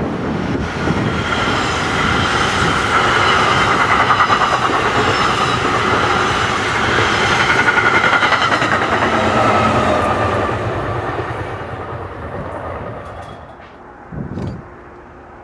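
NJ Transit Multilevel double-deck commuter train, pushed by an electric locomotive, passing close by: a steady rush of steel wheels on rail with a fast clickety-clack, loudest through the middle and fading away about twelve seconds in. A brief thump follows near the end.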